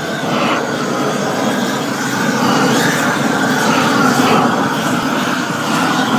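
Propane roofing torch burning steadily with a loud rushing hiss as its flame heats bitumen roofing membrane.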